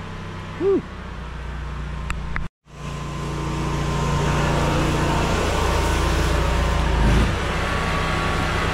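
An 8 gpm pressure washer's engine running steadily, with the hiss of the wand spraying soap mix onto vinyl siding. A short whistling chirp sounds about a second in.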